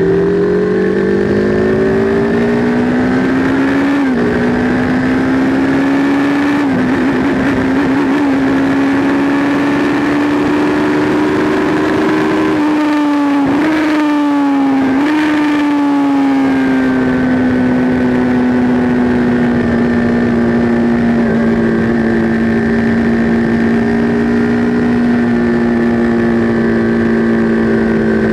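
Sport motorcycle engine at high revs, accelerating hard with two upshifts early on, each a sudden drop in pitch before it climbs again. After a couple of brief dips in pitch in the middle, it runs on at steady high revs with slowly falling pitch.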